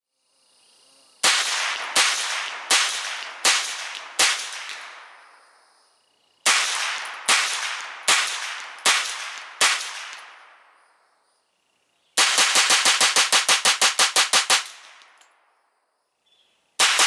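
Ruger Charger .22LR semi-automatic firing CCI Stinger rounds through a muzzle brake: sharp cracks with short ringing tails. First come two strings of five shots about three-quarters of a second apart, then a rapid run of shots lasting a couple of seconds, and another rapid run begins near the end.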